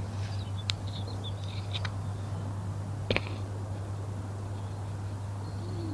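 Quiet lakeside ambience over a steady low hum: faint short bird chirps in the first couple of seconds and three sharp clicks, the loudest about three seconds in.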